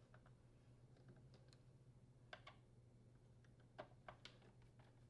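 Faint, scattered light clicks of a T15 Torx screwdriver backing out the small screws of a washer door's hinge cover plate. The sharpest clicks come in a pair about two and a half seconds in and singly near four seconds.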